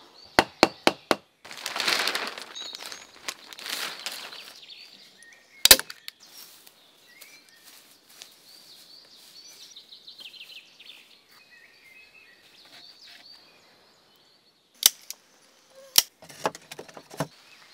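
Hand-tool work on logs: a quick run of sharp knocks, a couple of seconds of rustling, then one loud crack about six seconds in. Faint songbirds chirp through the middle, and a few more sharp knocks come near the end.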